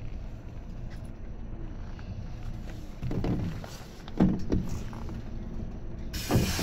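Tobu 10030 series electric train heard from inside the car as it comes to a stand at a station: a low steady rumble with two heavier clunks about three and four seconds in, then a sudden hiss near the end as the doors open.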